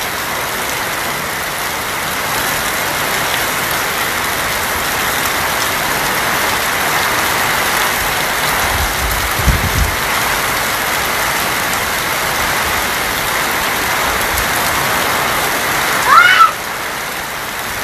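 Steady heavy rain drumming on a corrugated tin roof, with a short low rumble about halfway through and one brief loud call near the end.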